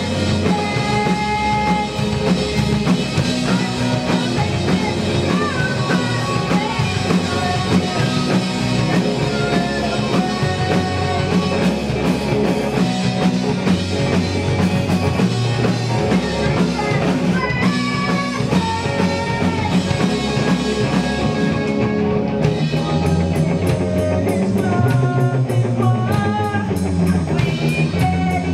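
Rock band playing live through a PA: drum kit, electric guitars and bass, with a woman's voice singing over them. About two-thirds of the way in the cymbals thin out, then a steady fast hi-hat pattern takes over.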